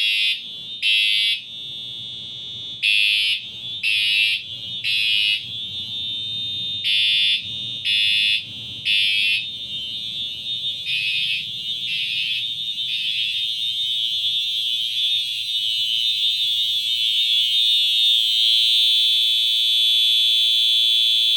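Two fire alarm horn strobes, an FCI and a Siemens, sounding together, pretty loud. One horn pulses in the temporal-three pattern, three short blasts about a second apart then a pause; these pulses fade out about 13 seconds in. A steady continuous horn tone grows louder and carries on.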